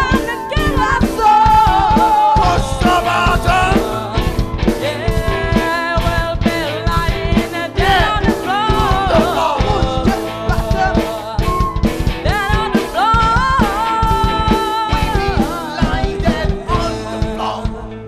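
Live band playing an upbeat ska-rock song: a steady drum-kit beat under electric guitar, flute and saxophone lines, with singing. The full band drops away near the end.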